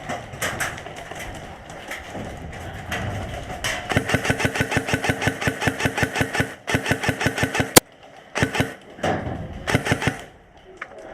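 Airsoft gun firing on full auto: a long rapid burst of evenly spaced shots from about four seconds in, a sharp crack near the eighth second, then two short bursts.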